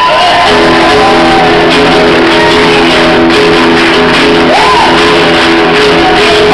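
Live singing with acoustic guitar through a PA: a long note held for several seconds, with shouting from the audience and a whoop near the end.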